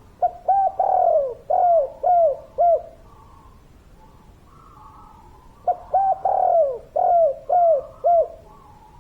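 Spotted dove cooing: two full song phrases, each a run of about six arched coo notes with a longer, drawn-out note early in the phrase, the second phrase coming about three seconds after the first ends.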